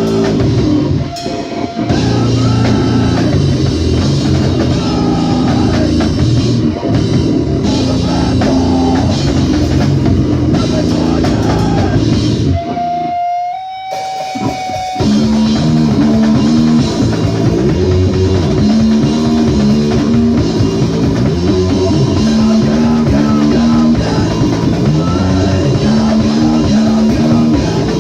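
Live rock band playing loudly with guitars, bass and a drum kit. About halfway through the band drops out for roughly two seconds, leaving one held note, then comes back in.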